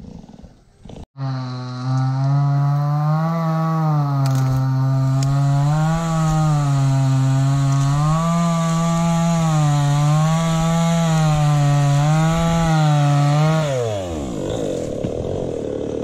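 Stihl MS 250 two-stroke chainsaw running at high revs while cutting wood, its pitch dipping and recovering every couple of seconds as the chain loads in the cut. It comes in suddenly about a second in; near the end the throttle is released and the engine winds down.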